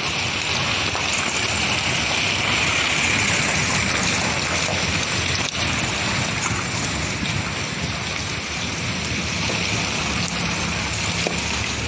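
Steady rain, an even continuous hiss.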